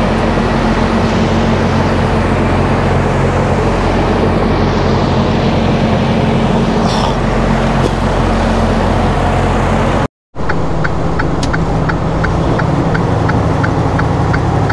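Semi-truck's diesel engine running steadily with a low hum. After a brief break about ten seconds in, a regular ticking about three times a second joins it.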